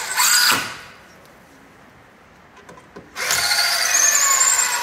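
Cordless drill-driver driving screws into a Western red cedar frame: a short burst that stops about half a second in, then a longer run starting about three seconds in, with a rising motor whine.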